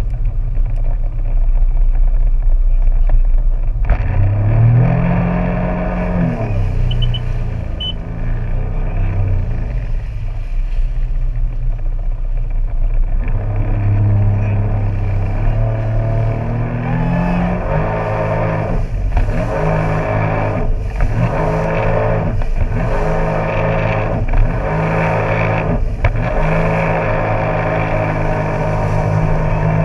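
Jet ski engine running and revving, its pitch climbing and dropping again and again. In the second half it revs up and falls back roughly every second and a half.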